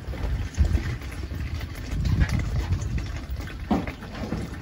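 Wind buffeting the microphone in uneven gusts of low rumble, with one short knock about three-quarters of the way through.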